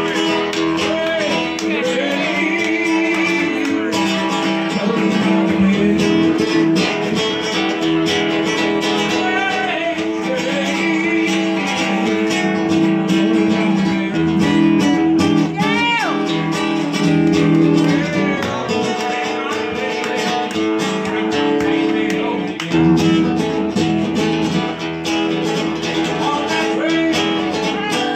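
Live music: acoustic guitar playing continuously, with a man's singing voice at times.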